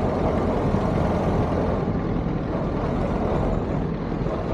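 Steady rumble and road noise of a moving vehicle, with most of the energy low down and no clear breaks.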